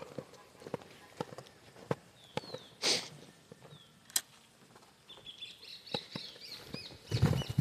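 Footsteps on dirt at a steady walking pace, with a few short, high falling chirps of small birds. From about five seconds in, many small birds chirp busily, and a loud, low rustling rumble comes in near the end.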